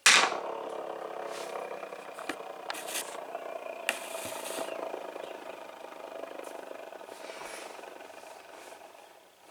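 Testrite padlock set spinning on a hard surface: a sharp clack as it starts, then a steady ringing rattle with a few sharper clicks that slowly fades away over about nine seconds.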